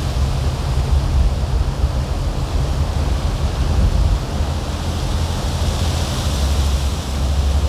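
Strong wind blowing over the microphone: a steady rushing with a heavy, unsteady low rumble of buffeting.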